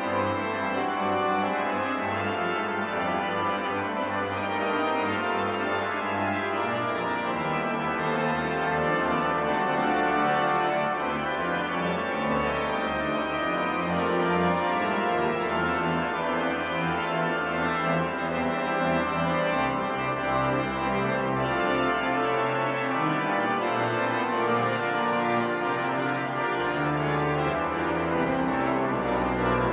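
1971 Weigle pipe organ, rebuilt by Treftz in 2012, playing full sustained chords. A deep pedal bass comes in about seven seconds in and moves to new notes several times.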